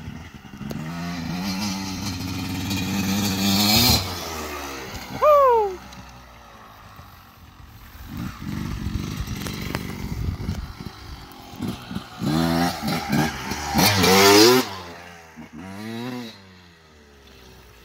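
A 1993 Yamaha YZ250's two-stroke single-cylinder engine revving as the dirt bike is ridden. It climbs steadily in pitch for about three seconds and then drops off. A second burst of revving rises and falls near the end. About five seconds in, a short, loud tone falls sharply in pitch, and a rough low rumble runs for a couple of seconds mid-way.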